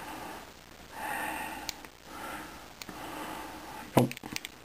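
Breathing and sniffing through the nose close to the microphone, three soft breaths in a row, with a few small clicks from the iPod Nano's click wheel being scrolled and a sharp tap about four seconds in.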